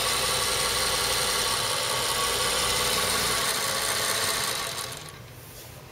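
Vintage Singer sewing machine with a direct-drive potted motor running steadily at speed, then fading out and stopping near the end.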